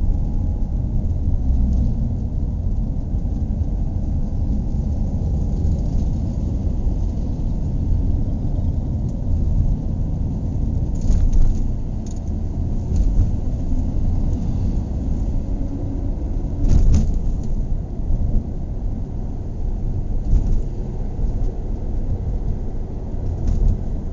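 Car driving, heard from inside the cabin: a steady low rumble of engine and road noise, with a few short knocks, the loudest about two-thirds of the way through.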